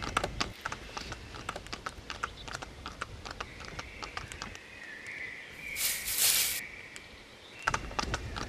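Horse hooves clip-clopping in an even walking rhythm, several sharp clops a second, over a faint steady high whistle. A brief rush of hiss comes about six seconds in, and a low rumble underlies the clops near the start and again near the end.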